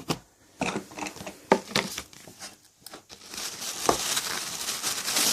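Packaging of a gift subscription box being opened by hand: scattered crinkles and taps, then a continuous rustle of paper and wrapping from about three seconds in.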